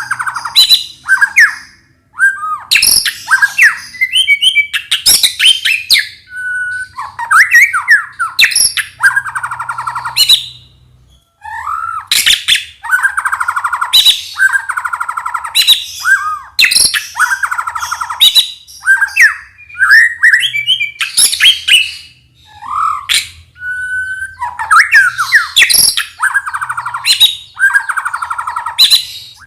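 White-rumped shama singing a loud, varied song. It mixes rapid rattling trills, gliding whistles and sharp chattering notes in phrases broken by a few short pauses.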